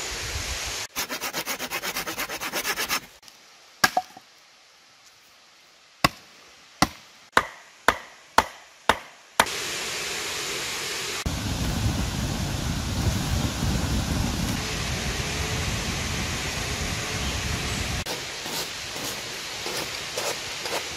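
Wood being chopped: a quick run of rapid strokes, then a series of about seven sharp chops roughly half a second apart. The chops give way to the steady rush of flowing river water.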